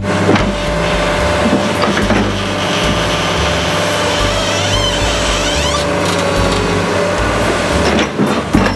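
Tracked hydraulic excavator running under load, its steel bucket scraping and knocking against a brick retaining wall and concrete. Sharp knocks come near the start and again near the end, over a steady engine drone and hydraulic whine.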